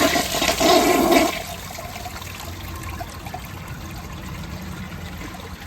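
Mansfield ProFit toilet flushing from a mid-height tank with its siphon jet blocked: a loud rush of water for the first second or so, then a steadier, quieter swirl of water in the bowl. The bowl is not siphoning, the sign of the blocked siphon jet.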